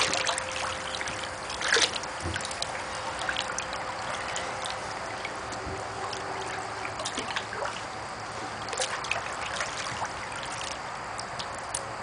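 A hand splashing and swishing through a tub of water thick with soaked paper pulp: small splashes and trickles, with louder splashes at the start and about two seconds in.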